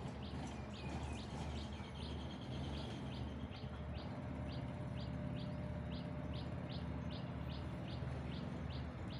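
Low steady rumble of a passenger train pulling out of the station, with a bird repeating a short high chirp a little over twice a second.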